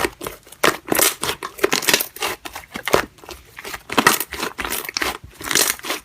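Slime being pressed and played with by hand, giving a dense run of irregular crackling clicks and pops.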